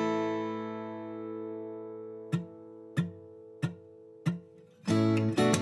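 Background music on acoustic guitar. One chord rings out and slowly fades, then four short muted strokes tap out a beat, and steady strumming starts near the end.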